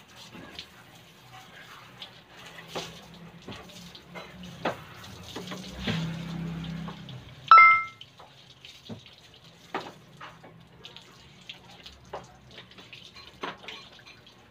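Water running and splashing as a motor scooter is hand-washed, with scattered small knocks and clinks. About halfway through comes one sharp, ringing metallic clang, the loudest sound.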